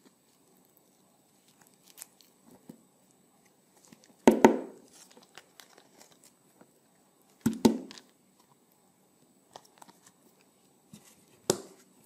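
A handheld plastic julienne grater drawn across a wedge of winter melon, three crisp scraping strokes a few seconds apart as strips of flesh tear away. Faint rustling of the shredded strands between strokes.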